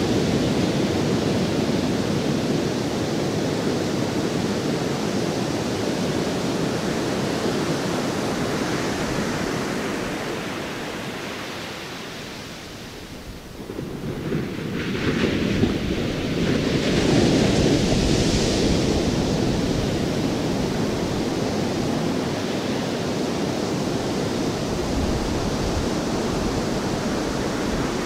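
Steady rush of ocean surf that sinks about halfway through, then swells back with a brighter surge of a breaking wave before settling again.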